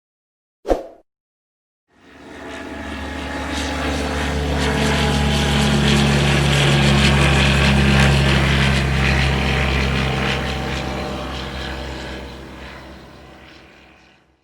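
A short sharp knock just under a second in, then, after a pause, a light propeller aircraft's engine drone that grows steadily louder, peaks midway, and fades away as it passes by.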